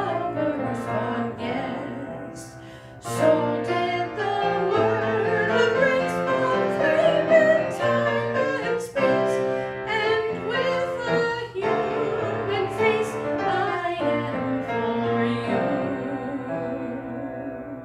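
A woman singing a hymn solo, accompanied on grand piano; the music fades away near the end.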